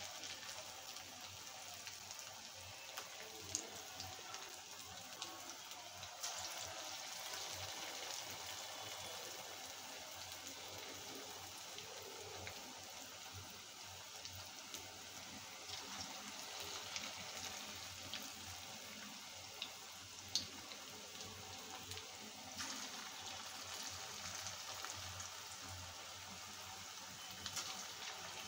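Noodle pakoras deep-frying in hot oil in an aluminium kadai on a low flame: a steady sizzle with occasional sharp crackles.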